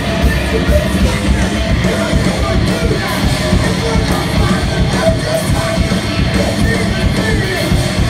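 A rock band playing loud and heavy live: electric guitars and drums, with a singer's voice over them.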